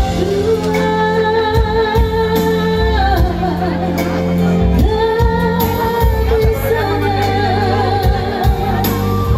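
Music with a singer holding long, wavering notes over a steady bass accompaniment.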